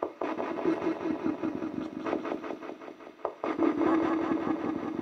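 Spirit communication device (a spirit-box-style echo device) sounding from its speaker grille: a continuous stream of choppy, garbled sound with short pitched fragments breaking up every fraction of a second, the output in which EVP responses are listened for.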